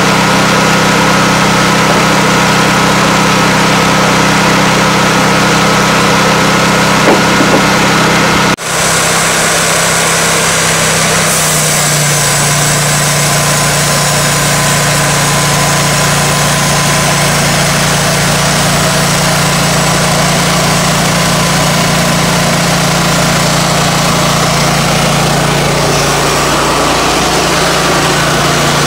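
Timberking 1600 portable band sawmill running, its engine going steadily while the band blade cuts through an oak log. There is a sudden brief drop about a third of the way in, and the engine's pitch rises slightly a little later.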